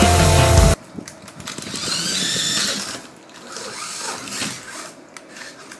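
Music cuts off just under a second in. Then the small electric motors of radio-controlled race cars whine as the cars run around the track, rising and falling in pitch, loudest about two seconds in, with a few short knocks.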